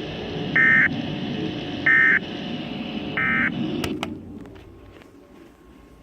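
Emergency Alert System end-of-message code: three short bursts of buzzing digital data tones about 1.3 seconds apart, over radio static that cuts off with a click about four seconds in. The tones mark the end of the alert message.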